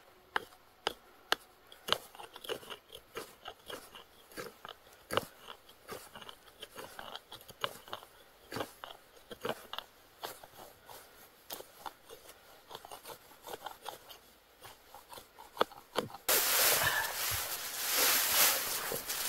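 A blade shaving curls off a stick of dry split firewood to make tinder for a campfire: short, dry scrapes and cracks, about one or two a second. About 16 seconds in it gives way to a louder, steady rustling.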